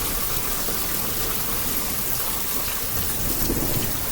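Heavy rain falling steadily: an even, dense hiss of drops.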